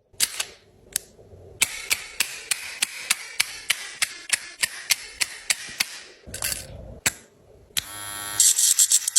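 Dog nail clippers snipping: a quick, regular series of sharp clicks, about three a second. Near the end an electric nail grinder starts buzzing.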